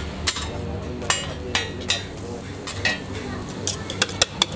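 Metal cooking utensils clinking and knocking against cookware in irregular strikes, some ringing briefly, over a steady low hum.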